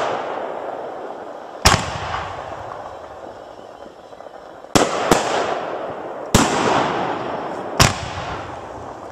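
Consumer aerial fireworks shells bursting: five sharp bangs a second or more apart, two of them close together near the middle, each trailing off in a fading hiss.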